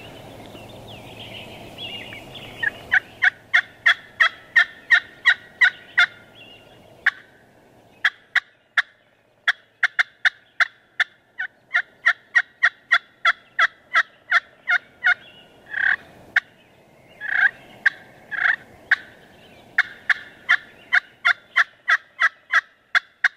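Slate-over-glass turkey pot call with a walnut pot and a purpleheart striker, played in strings of short sharp notes, about three a second, imitating a hen turkey. The runs start about two seconds in after some softer scratching, with a few longer, louder notes around the middle.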